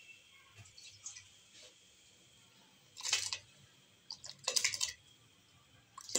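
Rice tipped by hand into a steel pot of boiling water, splashing in two short rushes about three and four and a half seconds in.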